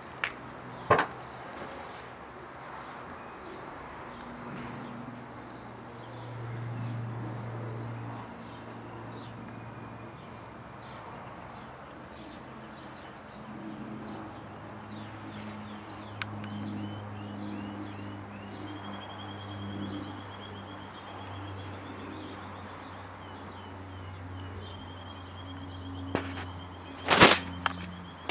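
Birds chirping, with short trills in the second half, over a low steady hum. There is a sharp knock about a second in and a louder clatter near the end.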